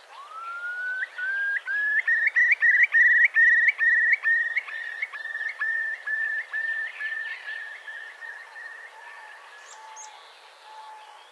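Eurasian curlew giving its bubbling song: a long rising whistle, then a run of repeated rising, bubbling notes that grow loud and then slowly fade away.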